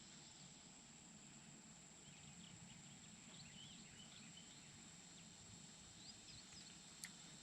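Near silence: faint open-air ambience with a few faint, scattered bird chirps and a steady high insect-like tone, and one sharp click near the end.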